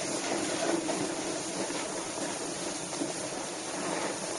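Steady rushing noise of riding down a snow slope: a board sliding over packed snow, with wind on the microphone.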